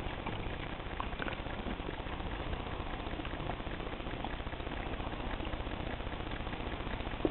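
Steady low rumbling noise, with a few faint short knocks scattered through it.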